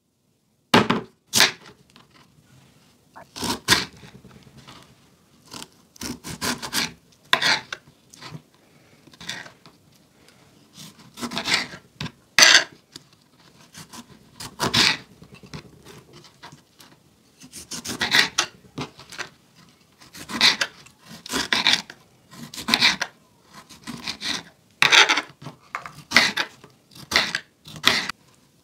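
Kitchen knife slicing limes on a plastic cutting board. The blade cuts through the fruit and knocks and scrapes on the board in irregular strokes and short runs of chops, with pauses between them.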